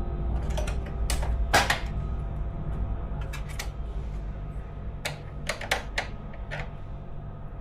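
Irregular sharp clicks and taps, about ten in all and loudest about a second and a half in, typical of plastic casing and small parts of a PS4 Pro console being handled and fitted, over a steady low hum.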